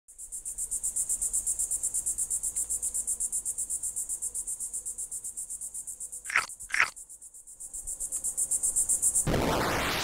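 Insects trilling in a high, fast, even pulse, with two short falling calls a little past the middle. Near the end the trill stops and a loud rush of noise takes over.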